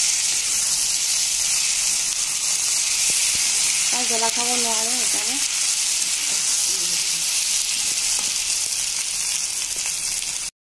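Chicken and potato curry sizzling in hot oil in a kadai as a spatula stirs it: a steady frying hiss that cuts off suddenly near the end.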